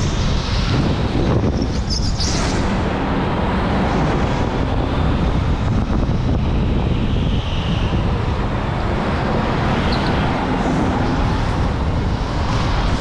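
Electric go-kart running on the track: a steady rumble with wind noise on the microphone. Short high squeals come about two seconds in and again near ten seconds.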